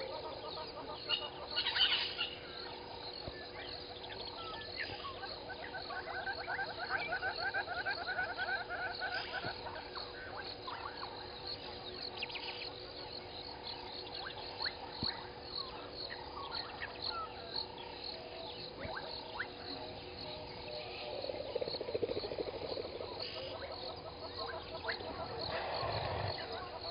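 Chorus of frogs and insects at a waterhole: a steady high trilling, with runs of fast-pulsing frog calls through the middle stretch. A brief louder call stands out about two seconds in.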